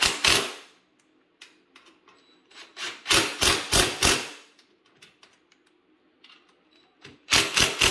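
Sharp tapping knocks on motorcycle exhaust hardware in three quick bursts of several strikes each: at the start, about three seconds in and near the end, with faint ticks between.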